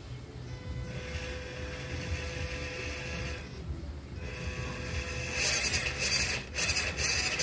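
Electric motor and gear train of an MN Model D90 RC crawler running with its wheels spinning in the air: a low hum at first, then a much louder, gritty whirr from about five and a half seconds in, briefly easing off once near the end.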